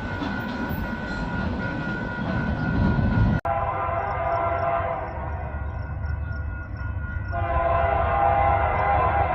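Heavy freight train cars rolling past with a low rumble, then an approaching diesel freight locomotive sounding its multi-note air horn over the rumble, the horn growing louder about four seconds after it starts.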